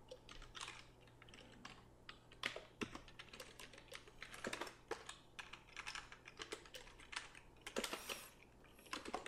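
Computer keyboard keys clicking faintly as text is typed in irregular runs.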